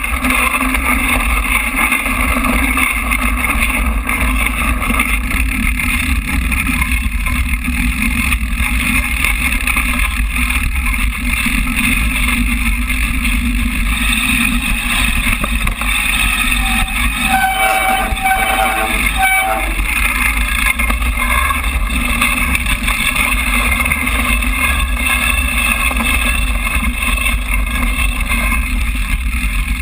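Mountain bike riding down a dirt forest trail, heard through an action camera's waterproof housing: a steady muffled rumble of tyres and frame over the ground mixed with wind on the housing. A short pulsing squeal sounds a little past halfway.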